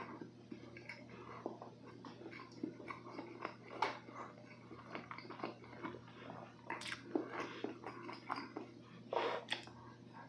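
Close-miked chewing of soft blueberry roll cake: irregular wet mouth clicks and smacks, a few of them sharper, with another bite taken near the end.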